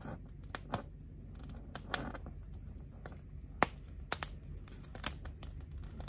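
Red bell pepper halves popping on the open flame of a gas stovetop burner as their skins blister: about a dozen sharp, irregular pops, the loudest a little past halfway, over a low steady hum.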